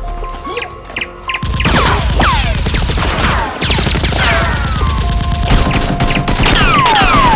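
Rapid gunfire sound effects over music, dense volleys of shots with repeated falling whistles, louder from about one and a half seconds in.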